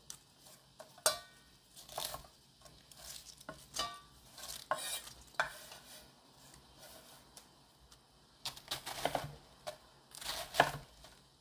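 Fresh cabbage leaves being torn and snapped apart by hand, in separate crisp crackles, with pieces dropped into a stainless steel bowl, once or twice with a brief metallic ring. Near the end a knife slices through a cabbage wedge on a wooden board.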